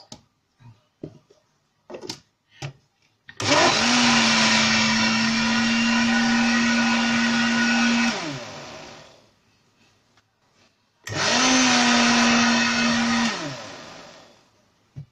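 Countertop blender motor running in two bursts, the first about four and a half seconds and the second about two, each winding down with a falling hum when switched off, as it beats eggless milk-and-oil mayonnaise with mustard, vinegar and sugar just added. A few light knocks come before the first burst as the lid goes on.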